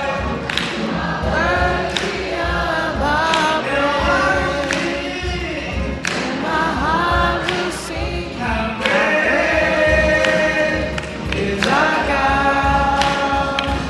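A choir singing, with long held notes in the second half.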